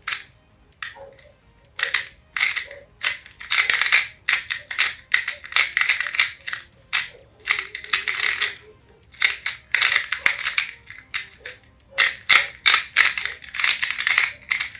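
Rubik's cube being twisted fast: quick runs of plastic clicks and clatter as the layers turn, in bursts with short pauses between them.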